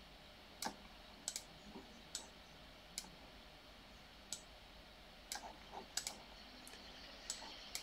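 Computer mouse clicking: about a dozen short, sharp clicks at irregular intervals, some in quick pairs.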